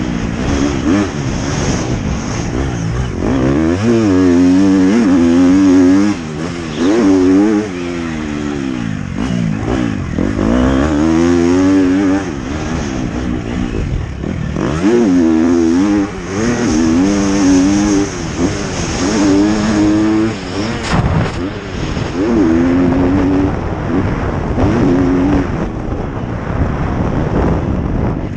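Motocross dirt bike engine heard from the rider's helmet camera, revving up and easing off over and over as the throttle is opened and shut. Its pitch climbs under acceleration, then drops away.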